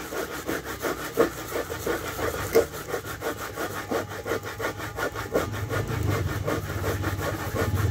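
Coconut flesh being grated by hand on a long toothed grater standing in a metal pot: rhythmic scraping strokes, about three a second. In the last couple of seconds a low engine hum comes up under the scraping.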